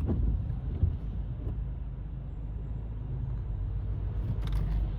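Car on the road: a steady low rumble of engine and road noise, with a few faint knocks.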